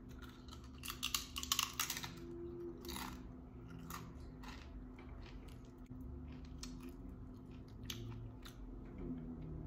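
Close-up crunching and chewing of a tortilla chip, the loudest crunches about one to two seconds in, then scattered softer crunches as the chewing goes on.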